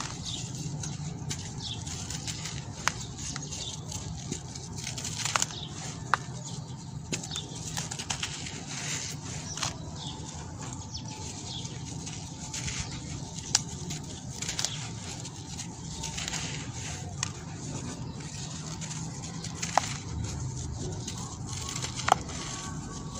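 Dry sand-cement lumps crushed and crumbled by hand: a steady gritty rustle of pouring grains with scattered sharp crackles as pieces snap apart.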